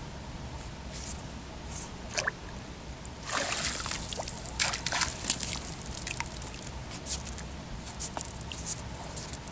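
Hand landing net splashing and sloshing through shallow pond water. After one short splash it settles into a dense run of splashes and drips from about three seconds in.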